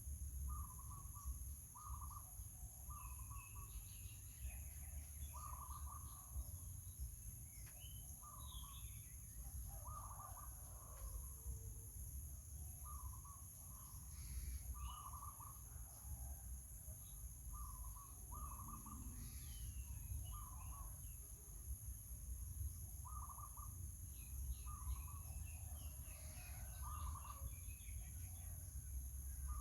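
Short animal calls repeated every second or two over a constant low rumble and a steady high-pitched drone.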